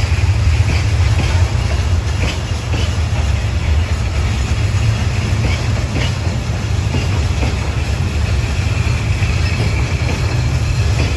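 Freight train rolling through at low speed: a steady low rumble from the wagons, with a few light clicks from the wheels.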